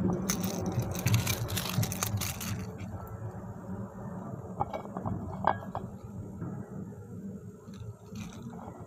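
Handling noise while unhooking a snapper on rocks with pliers: a quick run of scraping, knocking clicks for the first couple of seconds, then a few light separate clicks of metal on the lure's hook.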